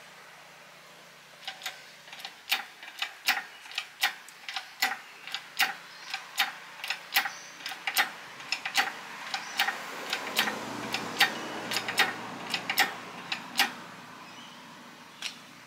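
Hydraulic engine hoist being pumped by its handle to lift a car engine: a steady run of sharp clicks, about two or three a second, one per pump stroke, stopping a couple of seconds before the end with a single click after.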